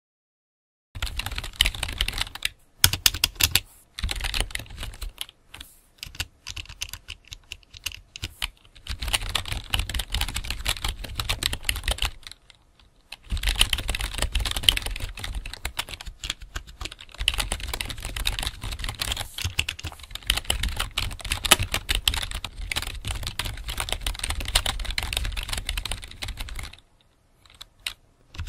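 Rapid typing on a computer keyboard, a dense clatter of keystrokes in runs broken by short pauses. There is a longer pause about twelve seconds in, and the typing stops shortly before the end.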